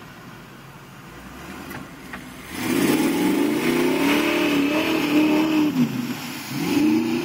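Engine of a lifted Chevy 4x4 bog truck revving hard as it spins through loose clay. It is faint at first, then loud about two and a half seconds in, its pitch climbing, holding and dropping, followed by a second, shorter rev near the end.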